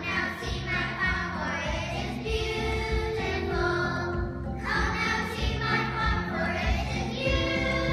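A group of young second-grade children singing together, with an instrumental accompaniment underneath.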